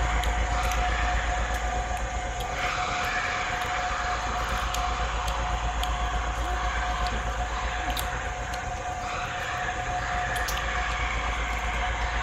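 Eerie droning soundtrack of a horror video: a steady noisy drone with a constant high-pitched whine and a low hum underneath.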